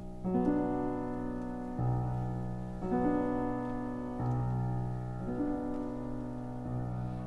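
Slow piano music: sustained chords that change about every second to second and a half.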